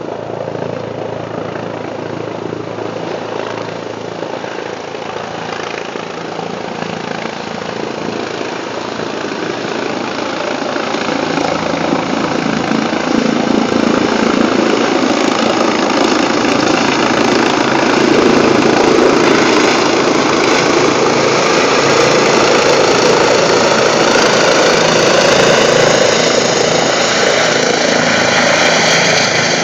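Eurocopter EC135 air-ambulance helicopter coming in to land, its rotor and twin turbine engines running. The sound grows steadily louder over the first half as the helicopter closes in and descends, then holds loud and steady as it hovers down over the pad.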